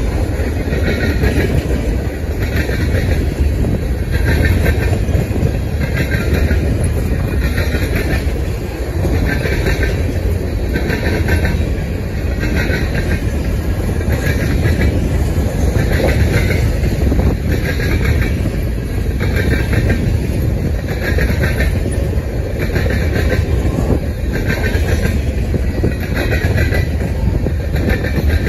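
Freight train of covered hopper grain cars rolling past: a steady low rumble of wheels on rail, with a higher rhythmic wheel noise repeating a little more often than once a second.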